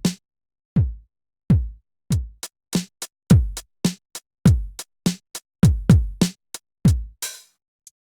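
A drum pattern from the Korg Triton Extreme VST: low kick drums that drop in pitch, mixed with sharp snare hits in a quick, uneven beat of about two hits a second. It thins out to a few light hits near the end.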